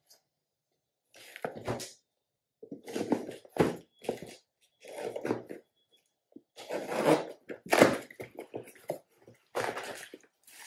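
A cardboard box being handled, its packing tape slit with a knife and its flaps pulled open: a string of short scraping bursts of cardboard noise with a few sharp knocks.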